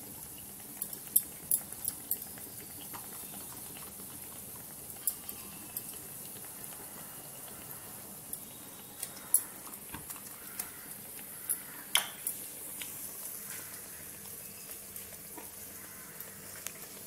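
Scattered light clicks and taps of a steel bowl, a spoon and glass bowls on a stone counter while dal batter is spread and shaped into vadas, over a faint steady hiss.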